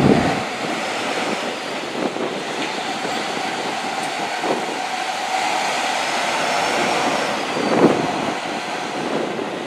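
Liebherr multi-axle all-terrain mobile crane driving slowly past, a steady heavy diesel engine and tyre noise that swells briefly near the end.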